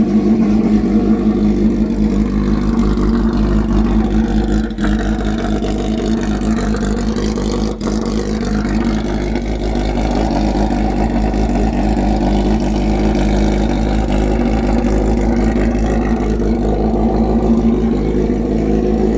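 Car engine running steadily with a pulsing low hum.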